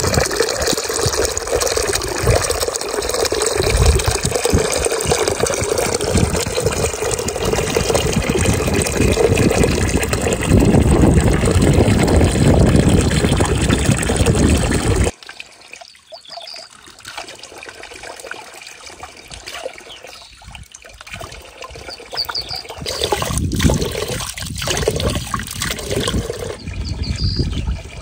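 Spring water falling in a thin stream onto a shallow pool, splashing steadily and heard close up. About halfway through it cuts to a quieter, more uneven trickle and splashing of the spring water, which grows louder again near the end as hands are dipped into it.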